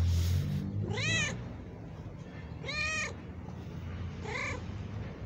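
Calico cat meowing three times, about a second and a half apart, each call rising then falling in pitch, the last shorter and fainter. A low steady rumble runs underneath, with a short burst of noise at the start.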